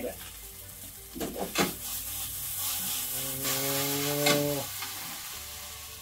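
Udon noodles sizzling as they fry in a frying pan, the hiss swelling from about two to five seconds in.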